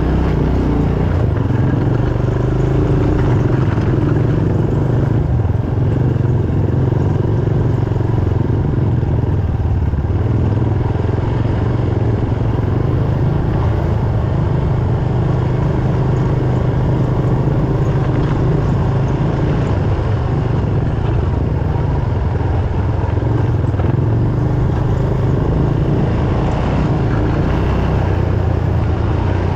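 ATV engine running steadily while riding a dirt trail, its pitch rising and falling a little with the throttle.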